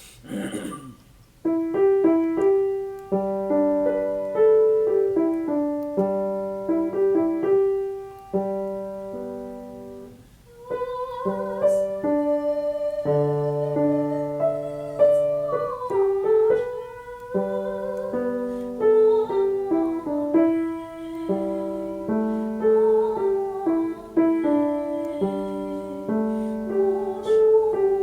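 Piano accompaniment plays a short introduction in even chords, then a singer comes in about ten seconds in and sings a legato phrase with vibrato over the piano.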